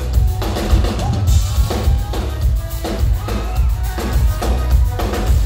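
Live pop band playing, with a drum kit beat over heavy bass and keyboard or synth lines.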